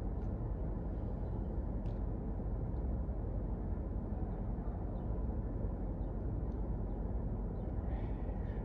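Steady low background rumble of room tone with a few faint ticks; no speech.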